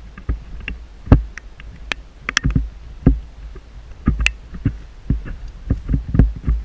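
Irregular thumps and sharp clicks, roughly one or two a second, from a handheld camera being carried and moved, over a steady low wind rumble on the microphone.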